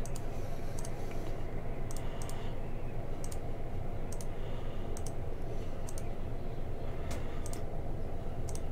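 Computer mouse button clicked repeatedly, roughly once a second, each click a quick press-and-release double tick, over a steady low background hum.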